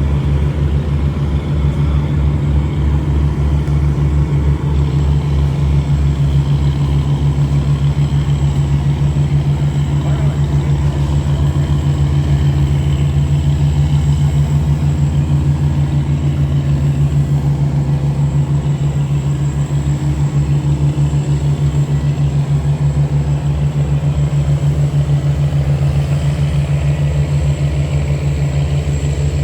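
A vehicle engine running steadily and close by, a loud low drone with a fast, even pulse.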